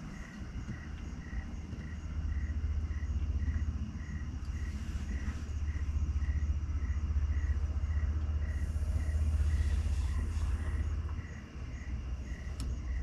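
Crickets chirping in a steady rhythm, about three chirps a second, over a constant low rumble.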